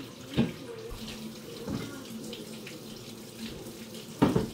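Liquid running steadily in a kitchen, with two sharp knocks, a small one about half a second in and a louder one near the end.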